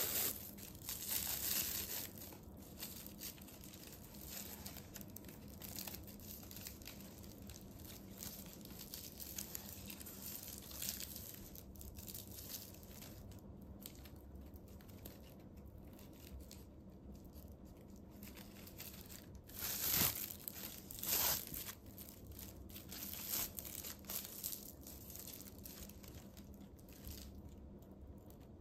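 Plastic raffia tape (suzuran polyethylene packing tape) crinkling and rustling as it is pulled through crocheted stitches with a tapestry needle to sew the bag handle's edges together. The noise is faint and irregular, with louder rustles about a second in and two more close together about two-thirds of the way through.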